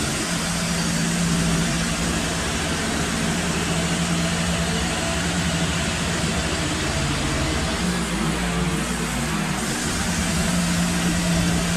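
Wood-Mizer LT15 band sawmill running steadily under load, its band blade cutting lengthwise through a pine log to take a 1.5-inch slab off.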